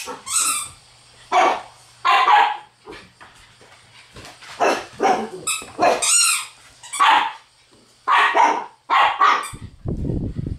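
Shiba Inu barking in short, high-pitched barks and yips, about nine in all, with one shriller yelp about six seconds in. A low rumble comes in near the end.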